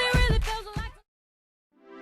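Background pop song with singing and a steady beat that cuts off suddenly about halfway through. After a short silence, a new piece of sustained held chords fades in near the end.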